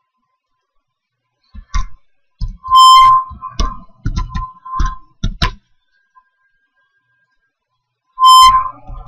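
Computer keyboard keystrokes in irregular clusters, cut across twice by a loud, clipped, high buzzing beep, about three seconds in and again near the end. This is the noise that sounds whenever the keyboard is touched, a fault not yet traced.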